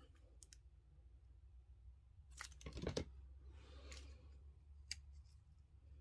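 Faint handling of paper cardstock and a plastic glue bottle on a tabletop: a few light clicks, a short louder knock about halfway through, then a soft rustle as the die-cut paper leaf is pressed onto the card.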